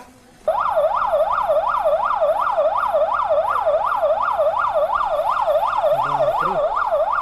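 Electronic siren wailing in a fast yelp, its pitch sweeping up and down about three times a second, starting suddenly about half a second in.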